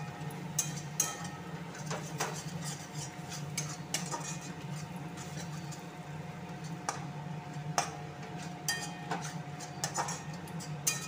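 A metal spatula scraping and clinking against a metal kadai as a thick masala is stirred, with irregular knocks over a steady low hum.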